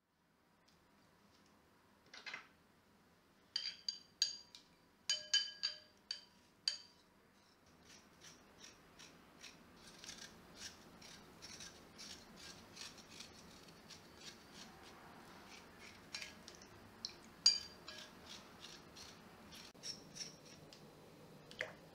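Skin being scraped off a fresh ginger root over a glass bowl of water, in short scratchy strokes about one to two a second. Before that, from about two seconds in, come a few sharp clinks with a ringing tone, as of the tool or the ginger knocking the glass bowl.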